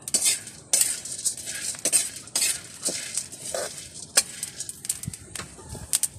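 A metal spoon scraping and clinking against a metal pan in irregular strokes, stirring kaping barako coffee beans as they roast over a wood fire.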